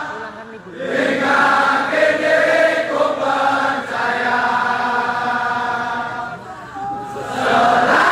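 Large crowd of football supporters singing a chant together in unison, in long held phrases with brief breaks between them.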